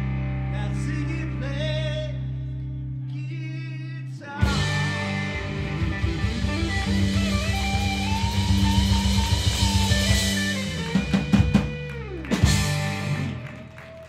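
Live rock band of two electric guitars, electric bass and drum kit playing the end of a song. Held guitar chords, then the full band comes back in loudly about four seconds in, with a drum fill near the end and a last loud hit that then rings out.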